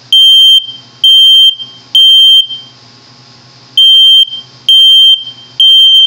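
Kidde 0915 smoke alarm sounding its alarm under test: loud, high-pitched beeps in the temporal-3 pattern, three beeps about a second apart, a pause, then three more.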